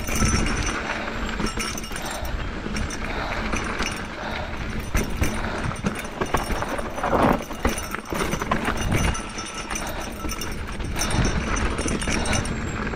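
Esker Japhy single-speed mountain bike rattling as it rides fast down a rough dirt singletrack: tyres crunching over ruts and rocks, with many knocks from the bike and its parts and a heavier clatter about seven seconds in. Wind rushes over the helmet microphone throughout.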